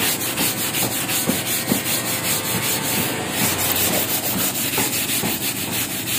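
A brush scrubbing wet, stone-textured floor tiles with fast, even back-and-forth strokes, several a second, working solvent-soaked dried paint drips loose.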